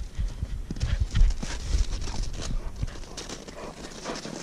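Footsteps crunching in snow, irregular and uneven.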